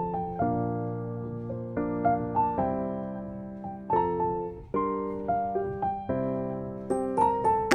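Background music: slow piano chords and melody notes, each struck and left to fade.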